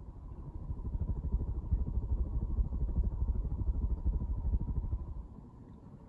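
Downdraft from a spinning Casablanca Meridien ceiling fan buffeting the microphone as a fluttering low rumble that swells over the first second and drops away about five seconds in. A faint steady hum runs underneath.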